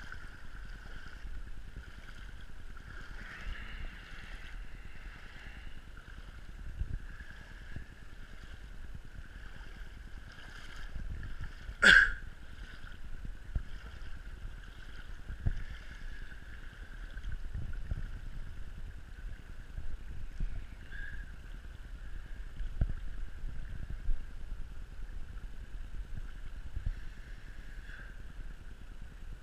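Floodwater flowing and sloshing close to a GoPro carried low over the water's surface, with scattered low thumps and one sharp knock about twelve seconds in.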